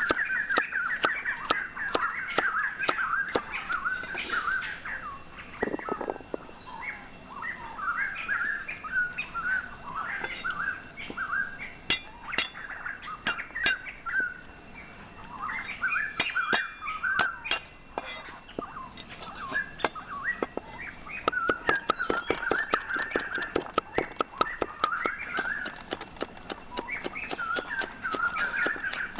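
Heavy cleaver chopping carrot, then garlic and red chili, on a thick round wooden chopping block: sharp knocks in quick runs of strokes. Birds chirp through it the whole time.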